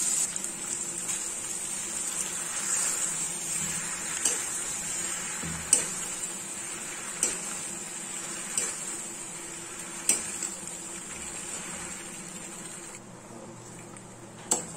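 Steel spoon stirring macaroni into frying masala in a steel kadai, knocking sharply against the pan about every second and a half, over a steady sizzle.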